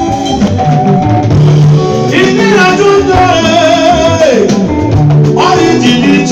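Loud amplified music through PA speakers: a singer's voice over bass, drums and other instruments, with the sung melody most prominent from about two seconds in.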